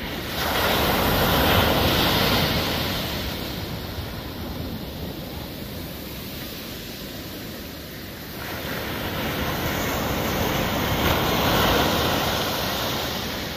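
Ocean surf breaking on a beach: one wave breaks and washes in just after the start, and a second builds about eight seconds in.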